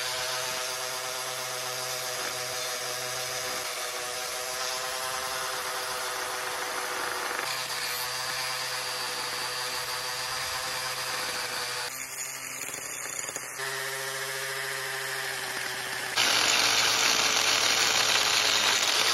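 Electric angle grinder running steadily and grinding the fibreglass hull around a boat's shaft log, a motor whine with gritty grinding noise over it. Its pitch and level jump abruptly several times, and it is loudest and harshest in the last three seconds before cutting off sharply.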